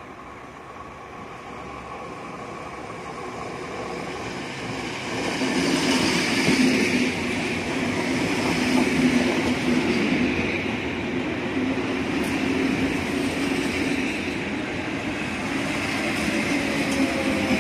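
RVR (Riga-built) ER-31/ER-35 electric multiple unit approaching and passing close by. Its running noise grows louder over the first six seconds, then stays loud and steady as the carriages roll past.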